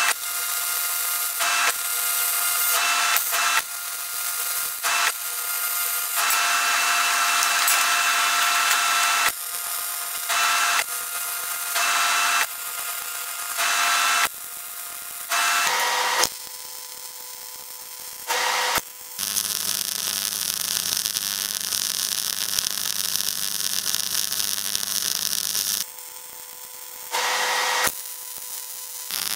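MIG welding arc on steel box-section, run from a transformer MIG welder with 0.8 mm wire, crackling and hissing in a string of short runs of one to three seconds with brief stops between. From about two-thirds of the way through comes a longer run with a low hum under it.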